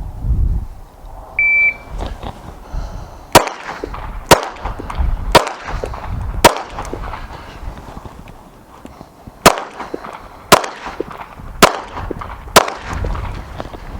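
A shot timer beeps once, then a Smith & Wesson M&P 2.0 pistol fires four shots about a second apart. After a pause of about three seconds, while the shooter drops to a kneel, it fires four more shots at the same pace.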